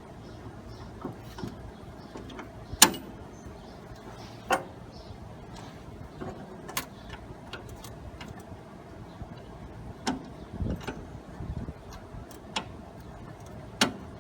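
Hand tools clinking and knocking on the metal of a lawn tractor's steering gear assembly: about six sharp metallic clicks spread out, the loudest about three seconds in, with a few duller knocks near the end.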